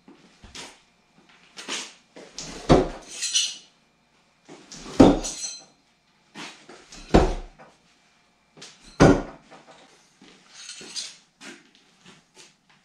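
Throwing knives thrown no-spin striking a wooden log-round target: four heavy thunks about two seconds apart, with lighter metallic clinks of the knives between the strikes.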